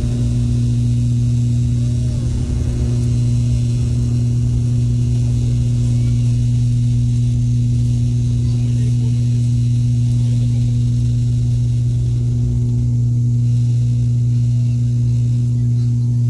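ATR 72-600 turboprop engine and propeller at takeoff power, heard inside the cabin during the takeoff roll: a loud, steady drone with a deep constant hum and a low rumble, its pitch holding level.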